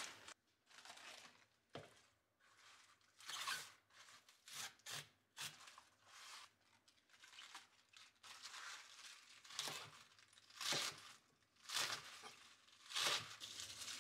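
Crisp katsuona (leaf mustard) leaves rustling and tearing as they are handled and pulled apart, in irregular short bursts.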